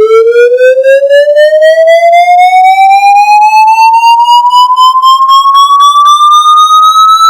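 Emergency alert system alarm: a single buzzy electronic siren tone with many overtones, sliding slowly and steadily upward in pitch with a fast, even pulse.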